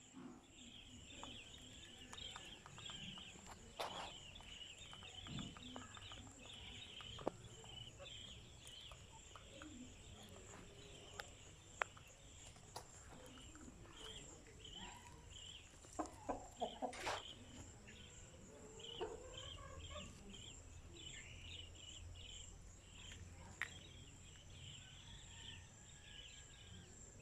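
A flock of chickens clucking and calling softly throughout, gathered waiting to be fed. A thin steady high whine runs underneath, and there are a few sharp clicks about two-thirds of the way through.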